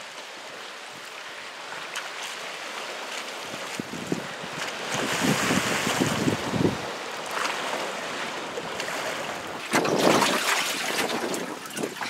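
Storm wind buffeting the microphone over choppy sea waves, with heavy gusts about five seconds in. Near the end, louder splashing of water close by.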